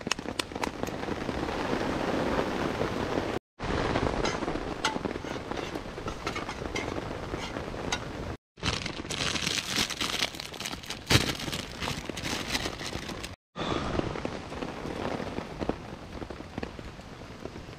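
Wood fire crackling and popping in a steel fire stand, with rain pattering on the tarp overhead. In the middle stretch an egg sizzles in a metal cooker set on the fire.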